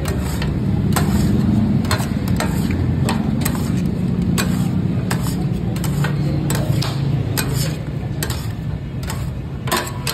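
Metal spatula-scrapers clacking and scraping on a flat steel griddle as marinated meat pieces are chopped and turned, in irregular strikes about twice a second. A steady low rumble runs underneath.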